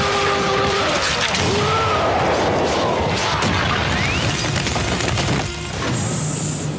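Anime fight sound effects: punch impacts and crashing as a Stand's blows land and enemies are knocked flying, over dramatic background music.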